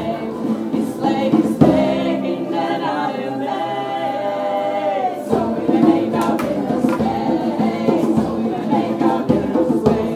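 Live band music with several voices singing together. From about two seconds in the voices hold long notes almost on their own, sliding down just after five seconds, and then the instruments come back in.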